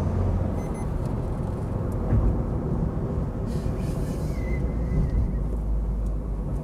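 Maruti Suzuki Baleno heard from inside its cabin while cruising on a highway: a steady low rumble of engine and road noise.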